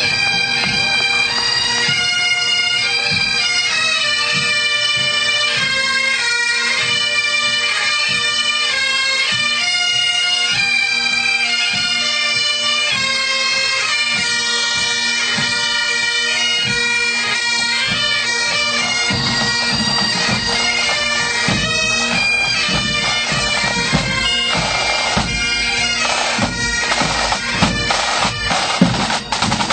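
Marching pipe band: bagpipes playing a tune, the chanter melody moving over a steady drone. Snare drums come in strongly over the last few seconds.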